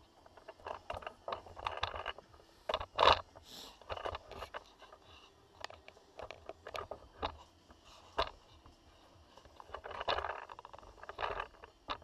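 Camera being handled and moved on a workbench: irregular scrapes, knocks and bumps, the loudest a sharp knock about three seconds in.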